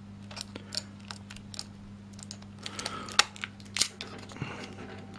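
Plastic clicks and scrapes from hands working a stiff-fitting part of a Neewer TT520 speedlight flash: a scattering of sharp separate clicks with some rubbing between them.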